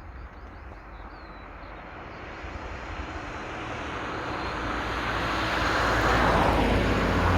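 A car approaching on a nearby road, its tyre and engine noise swelling steadily over several seconds as it draws near, loudest near the end.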